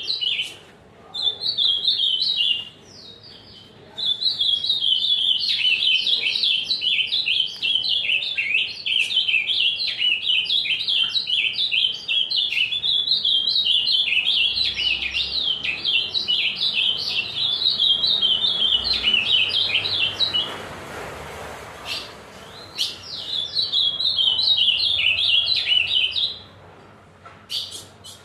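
Ultramarine grosbeak (azulão) singing: long runs of rapid, high warbling notes, broken by a few short pauses.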